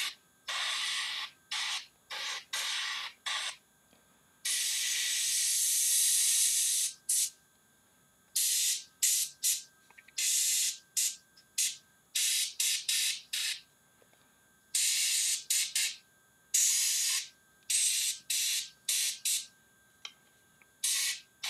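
Airbrush spraying thinned metallic paint in about twenty short bursts of hiss as the trigger is pressed and released, with one longer burst of two to three seconds about five seconds in.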